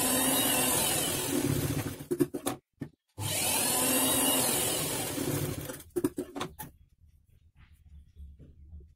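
Sewing machine stitching a seam in two steady runs of about two and a half seconds each, with a short break between. It stops about six seconds in, followed by a few light clicks and faint fabric handling.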